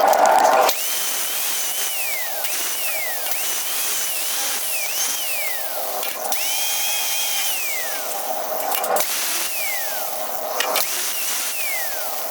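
Angle grinder with a cutoff wheel switched on and off in short bursts, about seven times: each time the whine comes up to speed, holds briefly, then falls in pitch as the wheel spins down.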